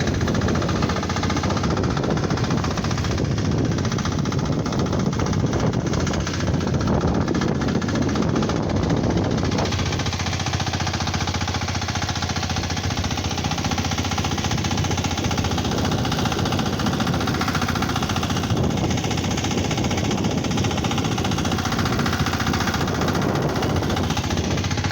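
A fishing boat's engine running steadily, close by, with a rapid knocking beat.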